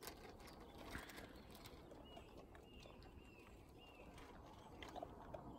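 Near silence outdoors: faint rustling and a few soft clicks, with several faint, short, high-pitched bird chirps about halfway through.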